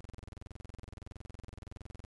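A steady low buzzing drone, pulsing very rapidly and evenly, that does not change at all.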